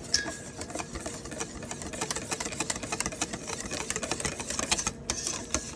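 A utensil clicking and clattering rapidly and steadily against a bowl as spice marinade is mixed. It stops abruptly at the end.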